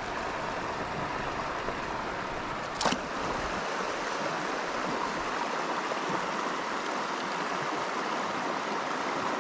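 Shallow, rocky river riffle rushing steadily over stones, with a single sharp knock about three seconds in.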